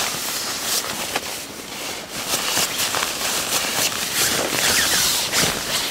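Nylon shell fabric of a down sleeping bag and down mitts rustling and crinkling as they are handled and pulled about, with scattered small crackles.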